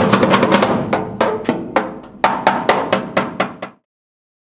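A quick run of sharp percussive strikes, about four a second, over a steady ringing tone. It cuts off abruptly near the end, leaving silence.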